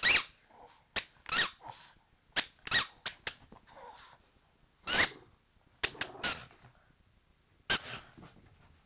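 Rubber squeaky ball squeezed in a Boston terrier's jaws as it chews: a dozen or so short, high squeaks in irregular bunches, the last near the end.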